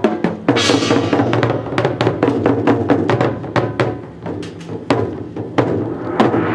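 Loud dance music with drums, cut through by many sharp wooden clacks.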